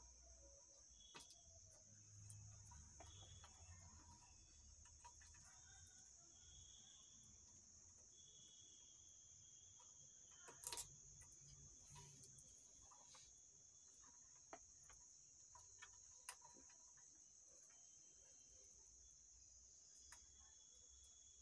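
Near silence: room tone with a faint, steady high-pitched whine and a few faint clicks and taps of soldering work on the amplifier board, the clearest about halfway through.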